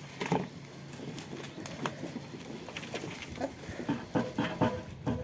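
Plastic flower pots and potting soil being handled during repotting: scattered knocks and clacks of plastic, with soil rustling between them.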